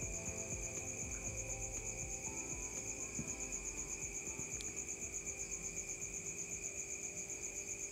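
Crickets chirping in a fast, even, high-pitched pulsing trill that goes on without a break.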